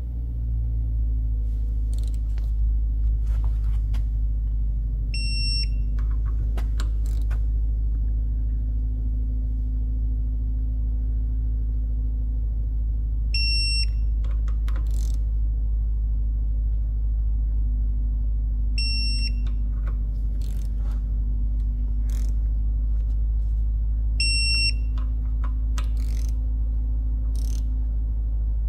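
Digital torque wrench beeping four times, several seconds apart, each a short high beep signalling that a bolt has reached its set torque of 15 newton metres. Clicks of the tool being worked come between the beeps, over a steady low hum.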